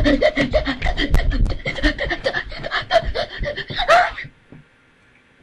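A boy laughing wildly and breathing hard right at the microphone, with low rumbling bumps as he moves close to it; it stops suddenly about four seconds in.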